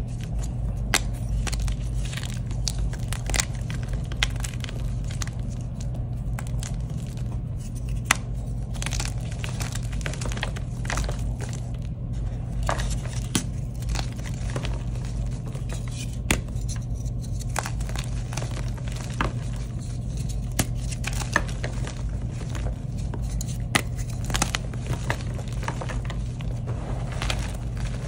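Hands crushing and crumbling blocks of dyed gym chalk: soft, crumbly crunching broken by frequent sharp cracks and snaps as pieces break, over a steady low hum.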